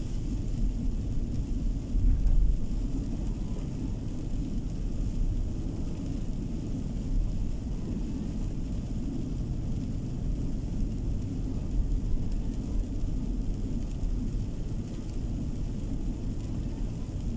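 Steady low rumble of a moving car's tyres and engine heard from inside the cabin, with a brief louder thump about two seconds in.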